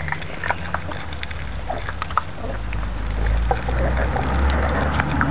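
Four Sealyham Terrier puppies eating together from one bowl: scattered small clicks and smacks of chewing and lapping. Beneath them runs a low rumble that grows louder about halfway through.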